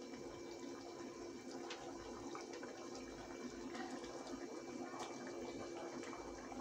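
Curry gravy simmering in a pan on a lit gas stove: a faint, steady hiss and bubbling, with a low steady hum underneath.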